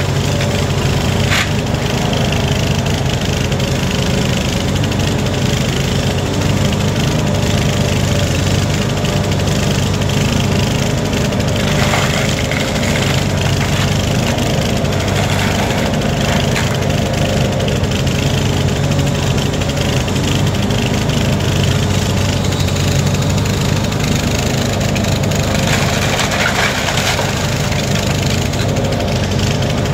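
Demolition excavator's engine running steadily under load, with occasional cracks and crunches of breaking wood as the house structure is torn apart.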